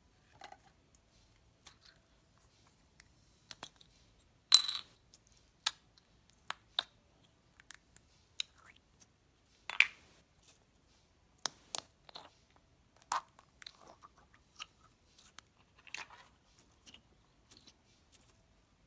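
Clear jelly slime being squeezed and pulled between the fingers: irregular small sticky pops, clicks and crackles, with two louder snaps, one about four and a half seconds in and one near ten seconds.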